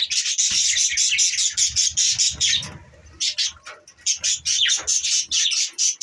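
A flock of budgerigars chattering and warbling together, with a brief lull about three seconds in.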